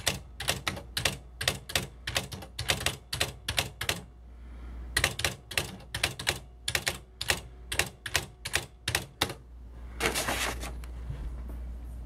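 Smith Corona Sterling electric typewriter printing keystrokes: a quick run of sharp clicks, about five a second, a pause of about a second, then a second run. About ten seconds in comes a longer mechanical rattle lasting under a second, over a steady low hum.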